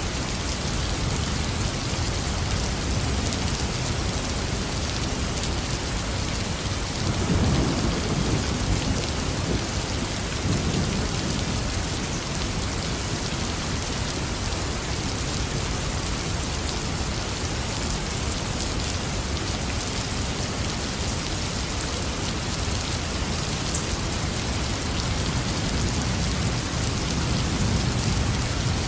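Heavy rain falling steadily, with a low rumble of thunder swelling about seven seconds in and lasting a few seconds, and a fainter rumble near the end.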